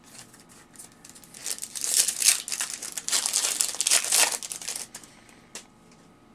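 Foil trading-card pack wrapper crinkling and tearing as it is ripped open by hand, a dense crackle from about a second and a half in until near the end.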